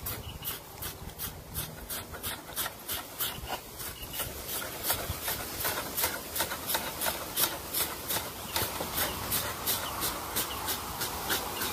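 A blade scraping singed hair and char off a hog's hide in quick repeated strokes, about two to three a second.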